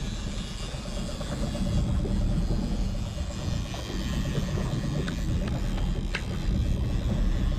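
Wind buffeting the microphone over the running motor of a small fishing boat under way at trolling speed: a steady low rumble with a faint even hum, and a few short ticks about two-thirds of the way in.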